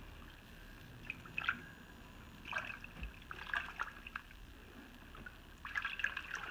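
Water splashing and trickling in a plastic tub as gloved hands move an ammo box through a hydro-dipping bath. The splashes come in short clusters: about a second in, again from about two and a half to four seconds, and once more near the end.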